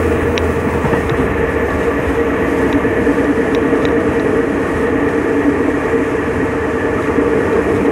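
SEMT Pielstick diesel engine of a State Railway of Thailand locomotive running steadily as it pulls the train, a steady drone with a couple of held tones. It is heard through an open coach window, mixed with the rolling noise of the moving train.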